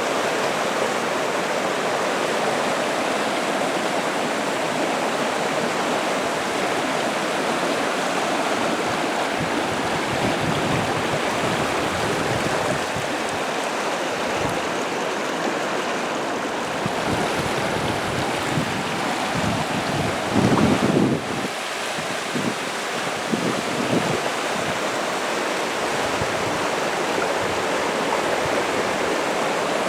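River water rushing steadily over rocks. A brief low rumble about two-thirds of the way through rises above it.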